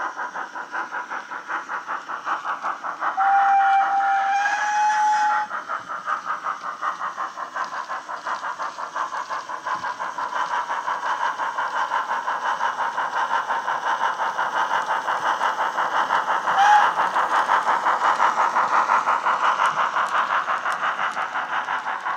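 Steam locomotive sound from a DCC sound decoder in a Hornby OO-gauge Crosti 9F model, played through its small onboard speaker: steady, rapid exhaust chuffs, with a long whistle about three seconds in and a short whistle toot later. The chuffs grow louder as the locomotive approaches.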